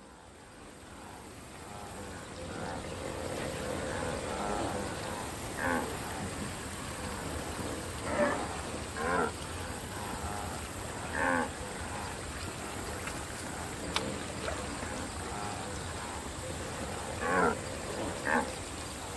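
Wildebeest calling with short low calls, about six in all, over a steady open-air background that fades in over the first few seconds. A single sharp click is heard about halfway through.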